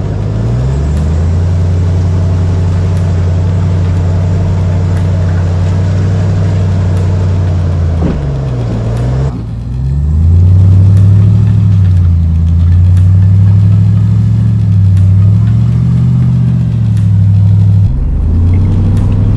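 RAM TRX pickup's supercharged V8 working at low speed while crawling over rocks, its engine note rising and falling repeatedly as the throttle is fed on and off, with a brief dip about nine seconds in.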